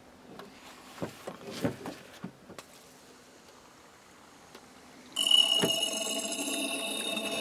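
Squeeze bottle and tube drawing Evapo-Rust out of a seized engine's cylinder through the spark plug hole. Light handling clicks come first. About five seconds in, a sudden steady squealing tone starts as liquid and air are sucked up the tube.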